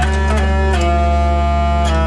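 Hurdy-gurdy played with its crank turning: steady drones sound beneath a melody played on the keys. The melody changes notes several times quickly near the start, holds, then changes again near the end, with a light click of the keys at each change.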